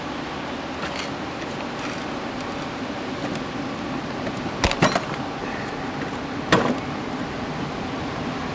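Three sharp knocks, two in quick succession about halfway through and one more a couple of seconds later, over a steady hiss.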